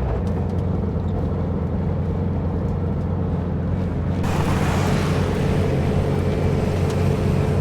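Air-cooled flat-four engine of a 1958 Volkswagen Bus running steadily while driving on a dirt road, a low even drone. About four seconds in, a hissing rush of road or wind noise comes in sharply over it.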